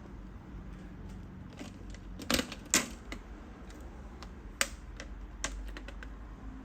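Irregular sharp plastic clicks and taps as a laptop's plastic screen bezel is pressed and pried back into place with a tool, the loudest two close together a little over two seconds in.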